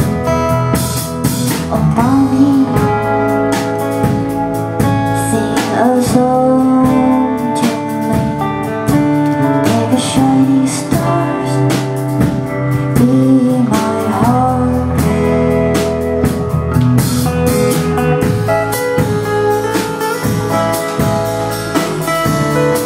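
Music with guitar and a drum beat, likely with a singing voice at times.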